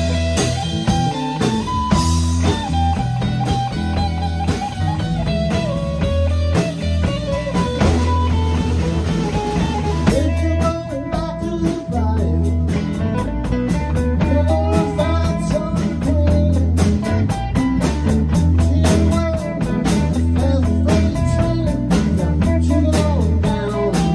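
Live rock band jamming a blues-rock groove: an electric guitar plays a lead with bent, wavering notes over a steady bass line and drum kit. About ten seconds in, the drummer's cymbal beat turns into a sharp, quick, even pattern.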